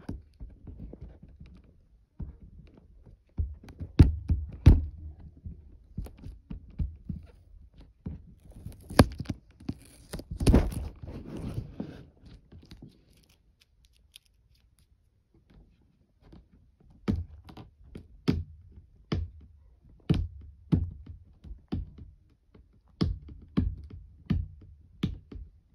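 A Jada Toys Batmobile replica's box being handled and worked open: irregular thunks and knocks, a stretch of scraping and tearing about nine to twelve seconds in, a short lull, then a run of sharp knocks and clicks.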